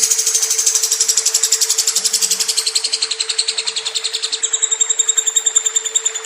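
Lovebird's long, unbroken rapid chattering trill (ngekek), about a dozen notes a second, brighter and higher for the first four seconds, over a steady low hum.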